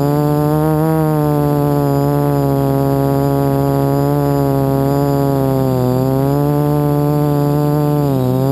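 Electric quadcopter motors and propellers buzzing close to the onboard camera, the pitch rising and falling with throttle and dipping sharply near the end.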